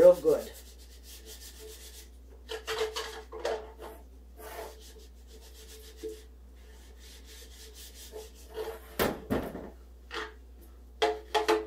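Shortening being rubbed and scraped around the inside of a metal Pullman loaf pan: irregular short rubbing strokes, with a few sharper knocks as the pan is turned and handled, about nine seconds in and again near the end.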